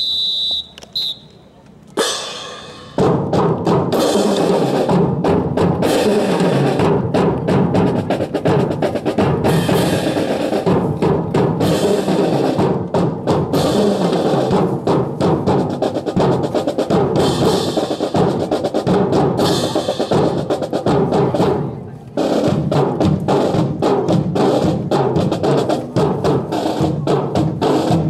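Drill team's drum corps, snare and bass drums, playing a fast marching cadence. The drumming breaks off briefly about three-quarters of the way through, then picks up again.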